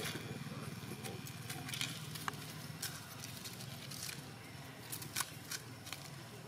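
Outdoor ambience: a steady low rumble with scattered light crackles and clicks, a cluster of them about five seconds in.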